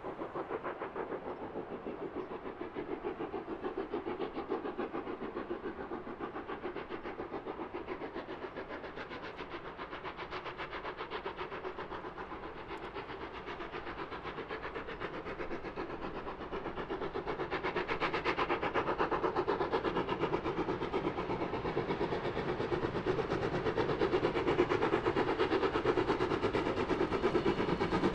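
Steam locomotive working under steam, its exhaust beating in a fast, even rhythm, growing louder over the second half as it draws nearer.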